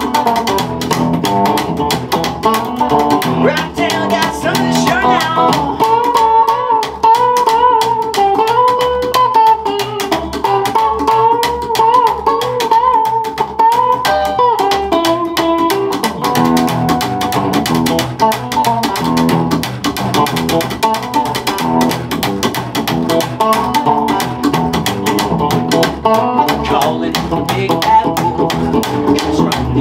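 Instrumental break on electric guitar and upright double bass: the bass keeps a steady rhythm under the guitar, which plays a lead line with bending, wavering notes from about six to fourteen seconds in.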